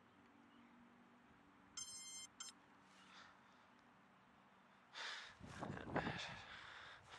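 An electronic beep, one long tone and then a short one, about two seconds in. From about five seconds in, a louder gusty rushing noise starts and runs on.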